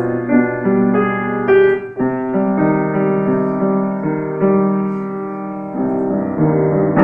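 Piano music: held notes and chords that change every second or so, with a brief dip in loudness about two seconds in.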